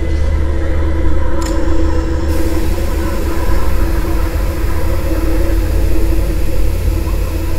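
A loud, steady low rumble with a droning hum over it. About two seconds in, a high hiss joins it and holds steady.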